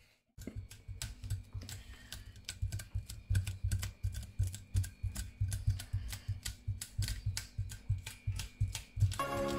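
A knife scraping the scales off a raw milkfish in a stainless steel sink: quick, repeated scraping strokes, about four to five a second.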